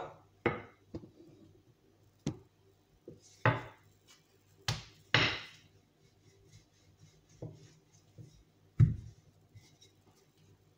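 Wooden rolling pin rolling out tortilla dough on a floured granite countertop: irregular wooden knocks as the pin strikes the stone, with short rolling scrapes between them.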